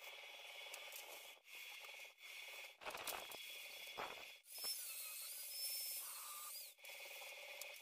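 Stick-welding arc crackling and hissing in short, cut-together pieces. Near the middle comes a high, wavering whine from an angle grinder for about two seconds.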